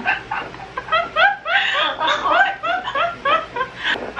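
A woman laughing in a string of short, high-pitched giggles, about three a second, each rising in pitch.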